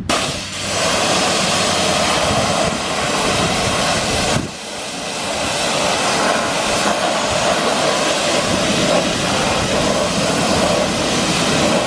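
High-pressure water spray from a pressure washer gun hitting a car wheel and tyre, a steady hiss that starts suddenly and eases briefly about four and a half seconds in.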